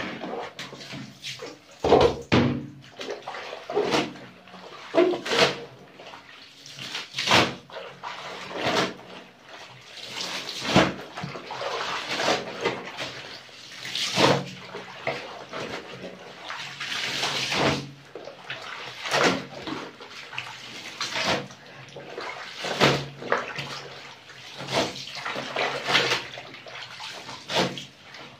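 Soapy water sloshing and splashing in a plastic washbasin as wet laundry is scrubbed and lifted by hand, in irregular surges about every second or two.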